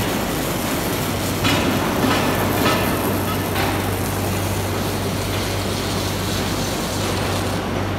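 Robotic arc welding in a factory shop: a steady noisy hiss from the welding arcs and machinery over a constant low hum, with a few brief louder spells in the first half.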